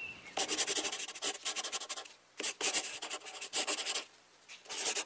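Pencil scratching across paper in quick strokes while a design drawing is sketched, in three spells with short pauses between them.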